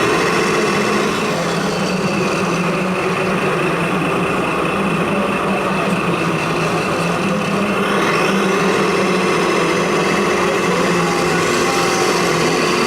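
Radio-controlled model trucks and construction machines running, a steady mechanical hum and whine of small motors.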